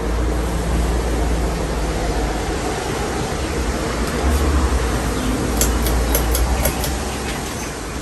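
44-inch Hunter Dominion ceiling fan running: a steady whoosh of moving air with a deep low rumble. A short run of light ticks comes about five and a half seconds in.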